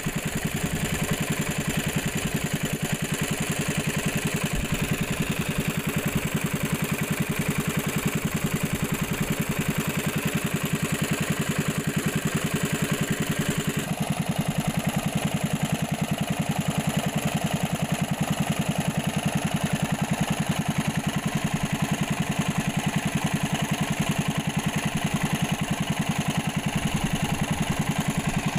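Small engine running steadily at an even speed with a fast, regular putter; its note shifts slightly about halfway through.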